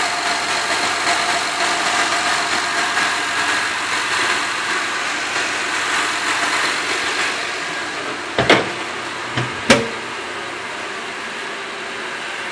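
Honda Odyssey's V6 engine idling steadily, with a hiss over it. A few sharp knocks come about eight and a half to ten seconds in, after which the sound is slightly quieter.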